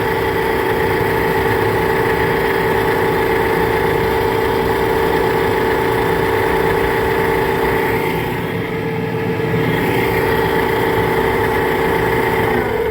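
HVAC air handler's belt-driven blower running with a loud, steady whine over a rumble, a noise the technician takes as a sign of bad bearings. The whine sags slightly in pitch near the end.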